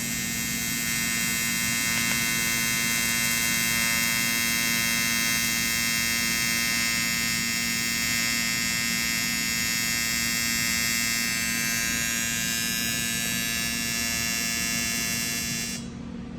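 AC TIG welding arc from a Titanium TIG 200 melting aluminum plate: a steady electric buzz. The foot pedal is pressed harder to drive more heat and melt the plate down. The arc cuts off near the end.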